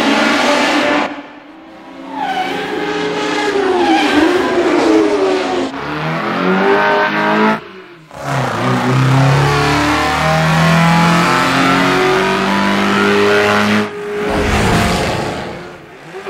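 Racing car engines at speed, over several shots: high engine notes glide up and down as the cars rev and pass, with a deeper, steady engine note in the middle. The sound breaks off briefly at each cut.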